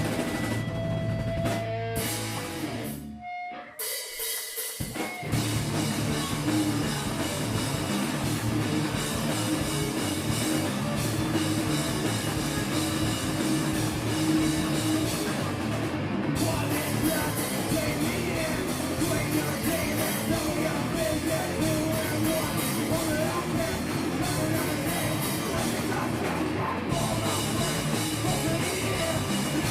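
Live rock band playing loud, with drum kit, guitars and vocals. A few seconds in, the sound drops away briefly, then the full band comes back in and plays on.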